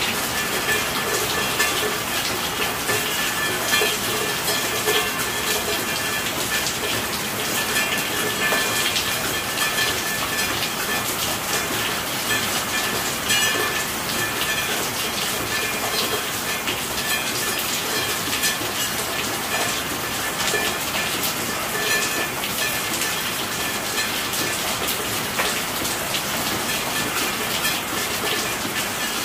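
Steady rainfall: a dense patter of drops over an even hiss that holds the same level throughout.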